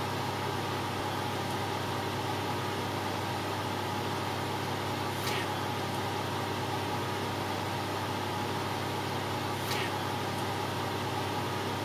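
Steady low hum and hiss of room noise, with two faint brief high sounds about five and ten seconds in.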